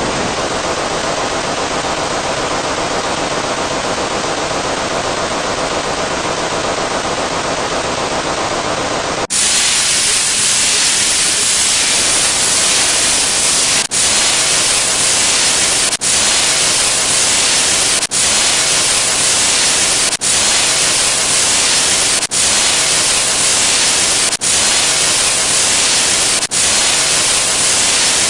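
Steady electronic noise hiss, like static. About nine seconds in it switches to a brighter, harsher hiss that breaks off for an instant about every two seconds.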